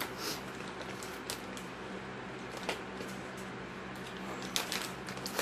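A few scattered short rustles and crunches from a snack bag of Xtra Hot Cheetos being handled and the chips being eaten, over a steady low hum in the room.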